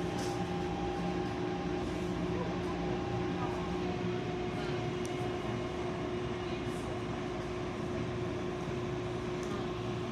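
Taipei MRT train heard from inside the carriage: a steady running noise with a constant hum.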